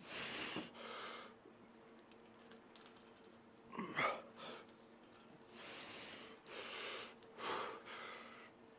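A man's heavy, forceful breaths, puffed out in time with the reps of a kneeling cable curl, with a louder short grunt about four seconds in.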